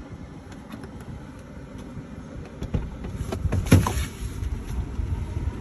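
Street traffic ambience, a low rumble heard from inside a stationary car's cabin, with a few clicks and a short louder sound about two-thirds of the way through.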